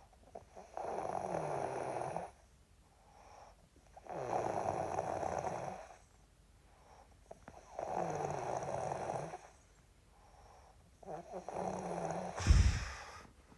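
A man snoring in long, raspy breaths, four snores about three and a half seconds apart. A sudden loud burst near the end is the loudest sound.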